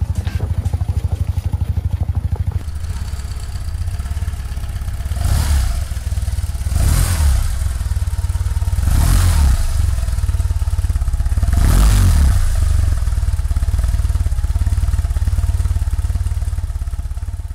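BMW R1200C's boxer-twin engine idling with a steady low pulse, revved briefly four times with the throttle.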